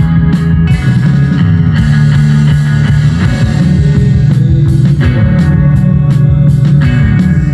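Rock recording with electric guitar and drum kit, and a fingerpicked electric bass line played along over it.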